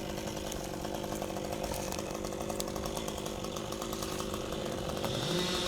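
Chainsaw engine running steadily. Near the end, a second, lower engine note rises in pitch.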